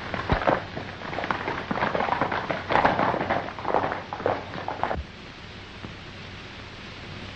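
Horses galloping off: a busy, uneven clatter of hoofbeats that cuts off suddenly about five seconds in, leaving the steady hiss of an old film soundtrack.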